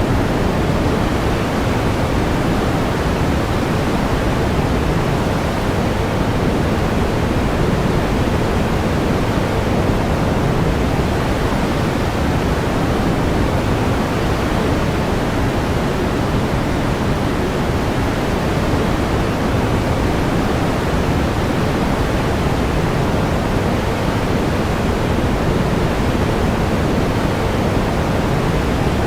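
Steady pink noise: an even, unchanging hiss, heavier in the low end than white noise.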